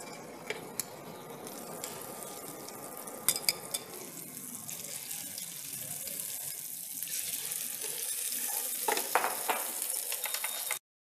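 Butter sizzling in a hot frying pan, then egg-soaked bread slices frying in it, the sizzle growing louder. Metal tongs click against the pan a few times. The sound cuts off abruptly just before the end.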